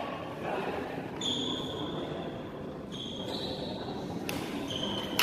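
Badminton rackets striking a shuttlecock in a rally, about three sharp hits roughly a second and a half apart, with high-pitched squeaks between them and echo from the hall.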